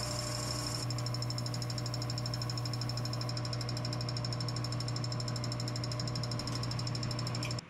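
Metal lathe turning a brazed cast iron pulley on a mandrel, a carbide insert tool cutting it: a steady motor hum with a fast, even high-pitched rattle that comes in about a second in. The sound cuts off sharply near the end.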